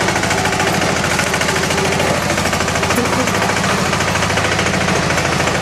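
Engine of a Yağmur YET-510 walk-behind garden tiller running steadily as it is driven along, a rapid even beat of firing strokes.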